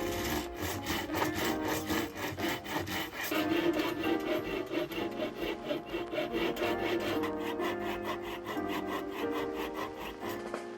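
Hand saw cutting through hard Japanese oak in quick, even back-and-forth strokes, about four or five a second, over background music.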